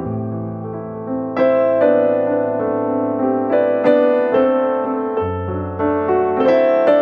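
Background piano music: gentle keyboard notes and chords over sustained bass notes.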